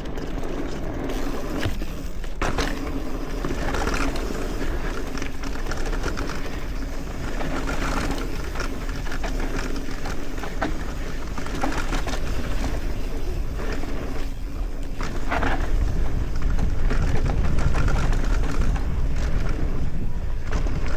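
Mountain bike descending a dirt flow trail: steady tyre roar and wind rumble on the microphone, with knocks and rattles of the bike over bumps. It grows louder in the second half as speed builds.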